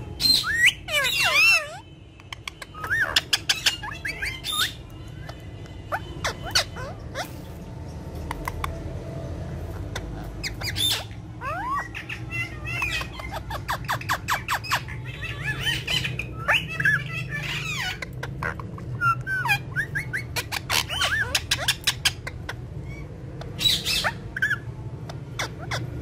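Indian ringneck parakeets chattering in many short squawks, chirps and clicks, with a loud burst about a second in.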